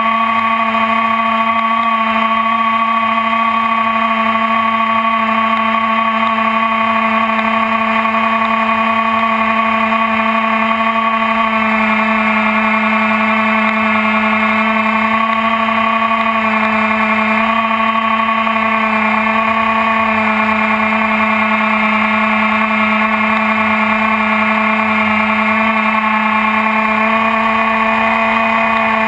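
Electric motor and propeller of an Axn Floater Jet RC plane, heard from the onboard camera in flight: a steady whine whose pitch shifts slightly about twelve seconds in.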